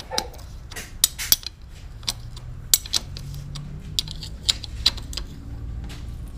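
Sharp metal clinks and taps of a spanner working on the underside of a Yamaha LC135 motorcycle engine during an oil change, a few irregular clicks a second over a low steady hum.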